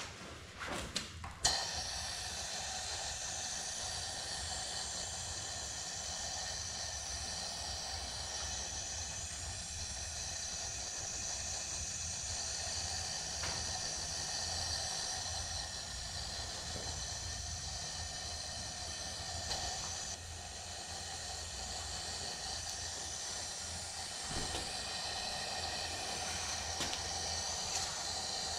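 A PCS-250 dual-voltage powder coating gun sprays powder with a steady hiss of compressed air. The hiss starts about a second and a half in, after a couple of short knocks.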